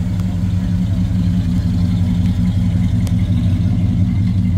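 A classic convertible's engine running at a low, steady idle as the car creeps slowly past.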